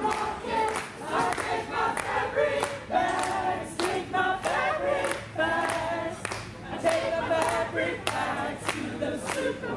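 A group of voices singing a song together, with clapping in time, about three claps a second.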